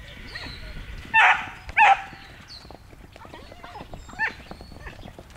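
A dog barks twice, loudly, about a second in, and gives a shorter yelp near four seconds. Horses' hooves thud softly on sand underneath.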